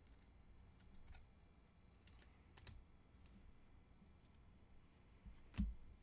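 Faint clicks and taps of trading cards being handled and flipped through a stack, with two louder knocks near the end.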